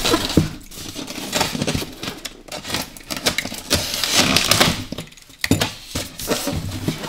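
Styrofoam packing inserts being pulled apart and handled: irregular rubbing, creaking and light knocks of foam against foam.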